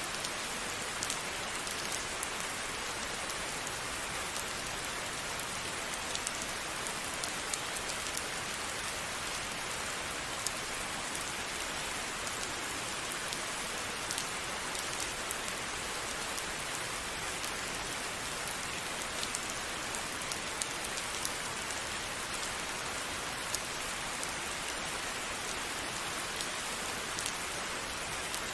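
Steady rain falling, with drops ticking here and there on a surface.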